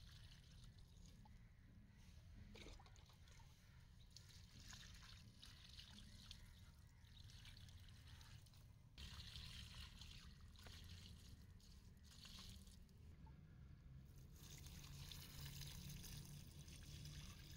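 Faint water pouring from a plastic jug onto wet soil around plants. It comes and goes in soft trickles and is clearest near the end.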